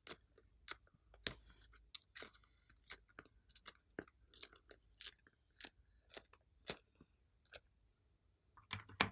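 Clear slime being squeezed and worked by hand, making irregular sticky clicks and pops about two a second, the loudest about a second in.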